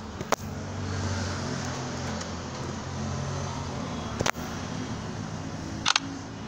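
A steady low hum, with three sharp clicks: one just after the start, one about four seconds in, and a quick double click near the end.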